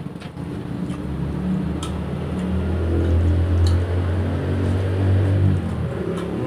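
A motor vehicle passing, its low engine drone building to its loudest in the middle and easing off near the end.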